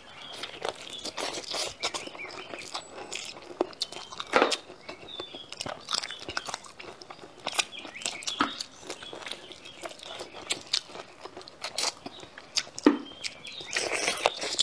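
Biting and chewing braised spicy chicken feet close to a clip-on microphone, a steady run of small clicking and crackling mouth sounds. A few louder bites stand out, one about four seconds in and one near the end.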